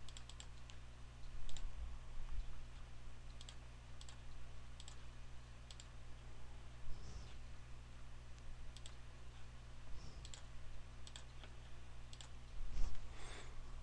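Computer mouse clicking a dozen or so times at an irregular pace as buttons are pressed in an on-screen calculator, over a steady low hum. There is a brief, louder noise near the end.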